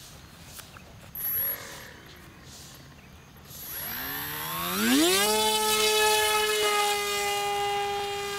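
Electric motor and propeller of an RC model plane spooling up from low to full throttle for a hand launch. Its whine rises steeply in pitch and settles into a steady high hum about five seconds in, then slowly fades as the plane climbs away.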